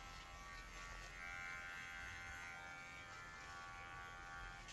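Electric hair clippers running with a faint, steady buzz.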